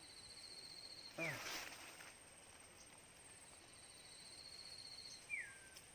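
Faint forest insect trilling on one high, rapidly pulsing note, in two long runs. About a second in comes a short, louder sound with a falling note, and near the end a brief falling whistle.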